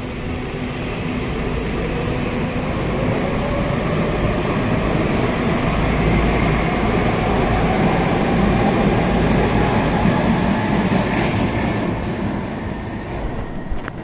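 Madrid Metro Line 6 train pulling out of the station: the traction motors give a whine that rises slowly in pitch as the train accelerates, over rumble and wheel-on-rail noise. The sound fades as the train goes into the tunnel, with one sharp click near the end.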